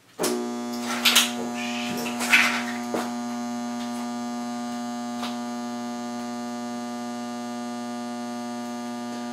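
Power transformer salvaged from a CRT television, overvolted on 240 volts, humming loudly and steadily from the moment it is switched on about a quarter second in. A few brief sharp noises come in the first three seconds.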